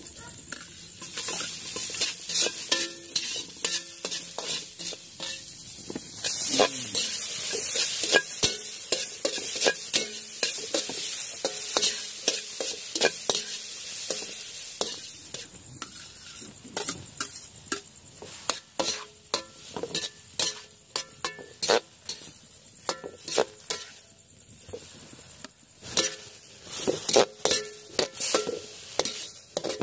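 Shrimp, onions and sliced hotdogs sizzling in a hot metal wok while a metal spatula stirs them, scraping and clicking against the pan. The sizzle is loudest in the first half and fades after about fifteen seconds, and the spatula strokes keep coming in quick runs.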